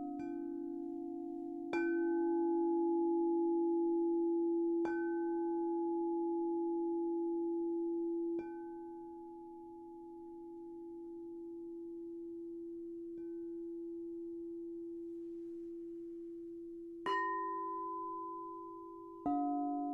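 Singing bowls struck one after another, seven strikes spaced two to four seconds apart, each left to ring on in long, steady, overlapping tones. A higher-pitched bowl comes in near the end.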